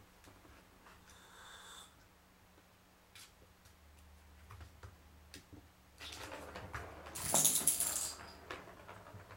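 Plastic ball-track cat toy being batted by a kitten: scattered light clicks and knocks, then a louder rolling rattle of the ball in the track from about six seconds in, loudest a little past seven seconds.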